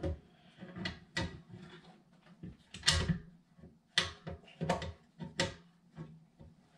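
Small assembly hardware being handled and fitted into the control frame: a screw being fed through the back plate, making a string of irregular light clicks and knocks.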